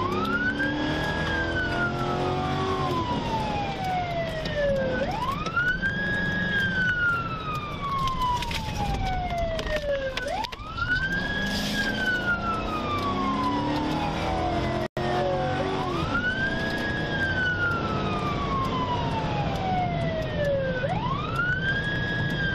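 Police siren on wail, heard from inside a moving patrol car. Each cycle climbs quickly and then sinks slowly, repeating about every five seconds over the car's engine and road rumble.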